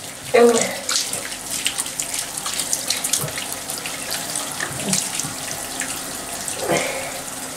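Water poured from a cup over a dog's wet coat in a bathtub, splashing and trickling steadily into the tub.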